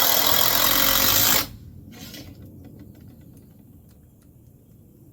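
Power drill running in one steady burst for about a second and a half, then stopping, followed by faint small handling clicks.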